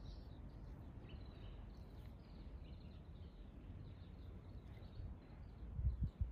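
Faint outdoor ambience with sparrows chirping now and then in the distance over a low steady rumble. A couple of dull low bumps come near the end.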